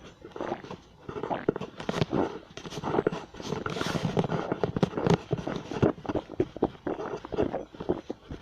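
Stomach growling and gurgling: a dense, irregular run of wet bubbling gurgles and small pops.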